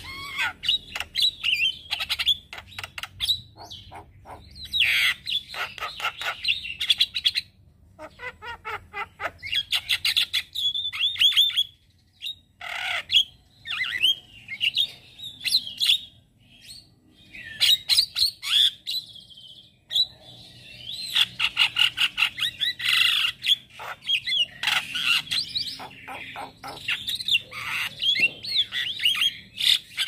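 Male Javan myna chattering and singing: fast runs of clicks, sweeping whistles and harsh squawky notes, broken by a few short pauses.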